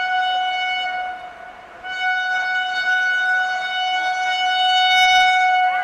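WAP7 electric locomotive's twin-tone horn sounding. A first blast drops away about a second in, then a long, steady blast of about four seconds cuts off near the end.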